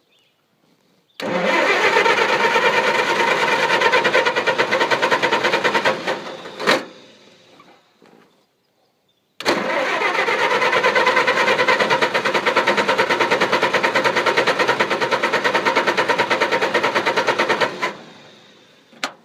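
An engine being cranked by its electric starter in two long attempts, the second longer than the first, a fast even chugging each time, and each attempt ends with a short click. The engine does not catch: a no-start.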